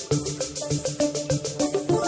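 Electronic music from a Korg M3 synthesizer running a KARMA-generated pattern: a busy run of short pitched synth notes over a steady beat, with a heavy low hit at the start and again at the end.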